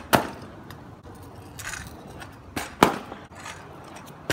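Stunt scooter deck and wheels striking asphalt during flat-ground trick attempts. There is a sharp clack just after the start, two more close together a little before three seconds in, the second the loudest, and another at the end, with the wheels rolling in between.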